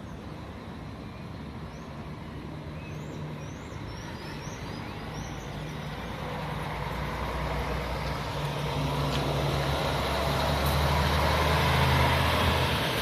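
A coach's diesel engine running and growing steadily louder as the bus draws near, loudest about twelve seconds in, then easing off slightly at the end.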